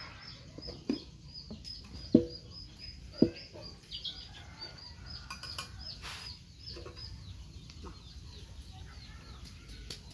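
Chickens clucking, over a fast, steady high chirping repeated several times a second; a few sharp knocks about one, two and three seconds in.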